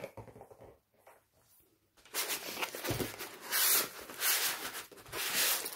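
Rustling and crinkling of a rolled diamond painting canvas and its clear plastic protective film as it is unrolled by hand, in a run of bursts starting about two seconds in.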